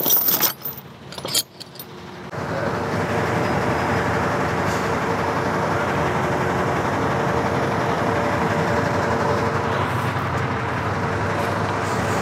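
A few knocks, then from about two seconds in a forklift's engine running steadily as it carries a heavy CNC machine up to a trailer.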